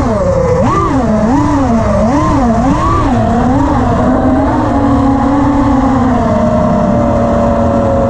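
FPV quadcopter's brushless motors (Armattan Oomph 2206 2300kv on HQ 5-inch tri-blade props) whining, the pitch rising and falling about every two-thirds of a second as the throttle is pumped, then holding a steady pitch from about halfway in.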